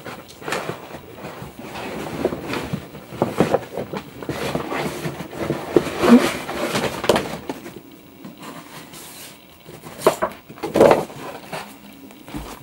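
Irregular knocks, bumps and rustling of someone moving about a small room and handling cardboard shoeboxes, with the loudest bumps near the middle and about two-thirds of the way through.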